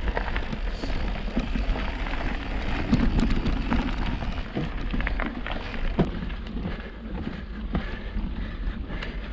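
Transition Patrol enduro mountain bike being ridden: tyres rolling over dirt trail and stone path, with frequent small clicks and rattles from the bike over a steady low wind rumble on the microphone.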